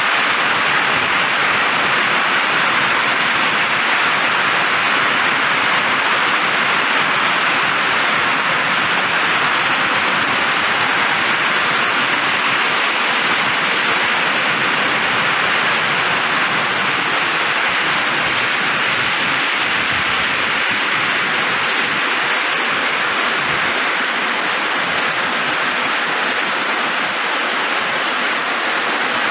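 Heavy rain falling in a steady downpour, an even, unbroken hiss.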